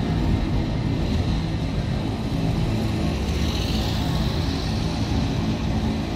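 Empty iron-ore hopper wagons rolling past on the railway, a steady low rumble. Partway through, a Volkswagen Beetle's air-cooled engine passes close by and drives off.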